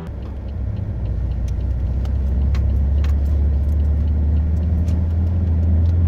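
Steady low engine and road drone heard inside a moving Pontiac Grand Prix, growing gradually louder, with scattered faint light clicks.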